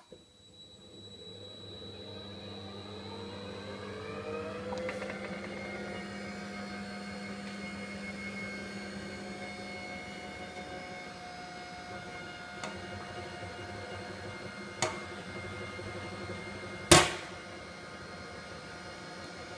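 Honey extractor's new electric drive motor starting up: a rising whine as it speeds up over about five seconds, then running at a steady pitch with a low hum as the basket spins. A few sharp clicks, the loudest about seventeen seconds in.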